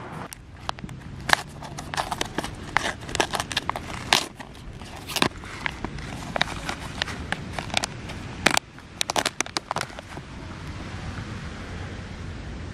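Plastic feed pouch crinkling and crackling in irregular sharp bursts as it is opened and pulled apart by hand.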